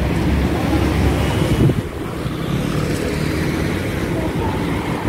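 City street traffic: motor scooters and cars passing at an intersection, a steady low rumble that is heaviest at first and eases a little under two seconds in.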